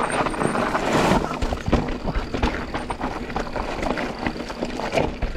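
Mountain bike riding down a rough dirt-and-rock trail: steady tyre noise with frequent knocks and rattles from the bike, and a louder rush about a second in.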